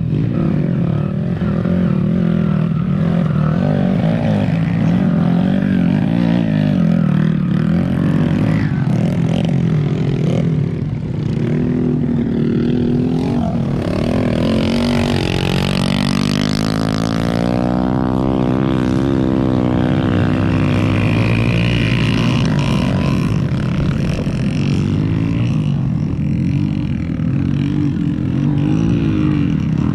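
Off-road motorcycle engines revving up and down as the bikes race round a dirt track, with the pitch climbing and dropping as riders open and close the throttle. Around the middle one bike's engine comes through loudest, its note sweeping up and down.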